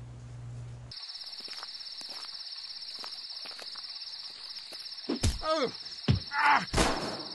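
A low electrical hum cuts off about a second in and gives way to crickets chirping in a steady, fast, high trill. Over the last two seconds several louder sounds join in, each falling in pitch.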